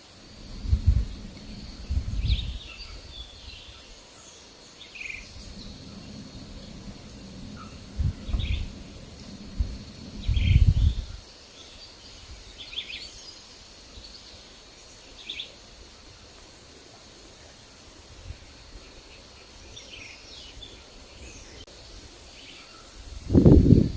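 Forest birds giving scattered short chirps over a faint steady high hum. Wind gusts buffet the microphone in low rumbles about a second in, at about two, eight and ten seconds, and loudest just before the end.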